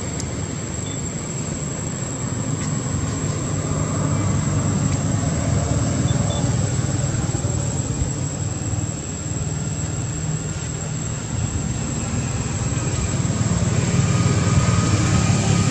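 Steady low rumbling background noise, growing louder near the end.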